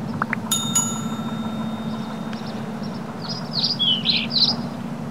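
Sound effects of a subscribe-button animation. A couple of quick rising chirps and then two sharp clicks about half a second in, followed by a bright ringing chime that fades over about two seconds. Near the end comes a run of high chirps, all over a steady low hum.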